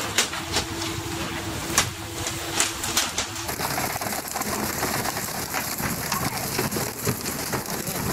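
Rush and patter of water spray along a pole-and-line tuna boat, with a steady low hum and several sharp knocks in the first three seconds. About three and a half seconds in, the sound changes abruptly to an even, rain-like hiss of water with many small ticks.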